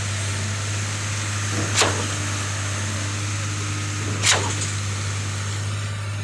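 Concrete pump running with a steady engine drone, punctuated by a sharp knock about every two and a half seconds, twice here, as its pumping cylinders switch over while concrete is pushed up to the slab.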